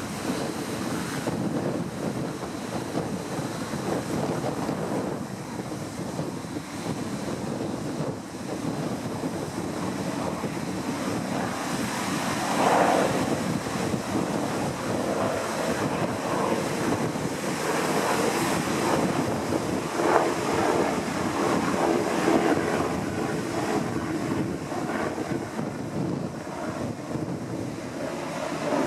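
Wind rushing across the microphone over the steady wash of breaking surf, with a few brief louder gusts or swells.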